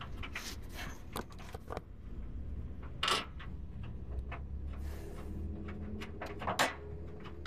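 Scattered small metallic clicks and clinks of hand work on a truck's rear shock absorber mounting, as its hardware is fitted by hand, with two louder clacks about three seconds in and near the end, over a low steady hum.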